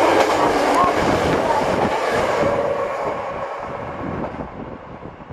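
Two-car diesel railcar train passing through the station at speed without stopping, the rumble and clatter of its wheels loud at first and then fading away over the last two seconds or so.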